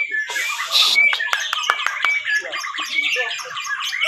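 Several white-rumped shamas (murai batu) singing at once in competition, a dense tangle of rapid chirps, whistled glides and sharp repeated notes. A brief harsh hiss comes about half a second in.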